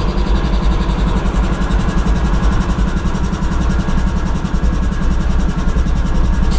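GE ES40DC locomotive's 12-cylinder GEVO diesel engine idling with a steady, deep, rapid throb.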